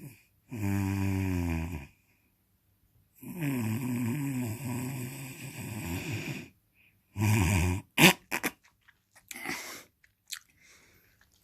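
Loud snoring: a drawn-out snore, a pause, then a longer snore that wavers in pitch. Then a short snore and a few sharp clicks and sniffs near the end.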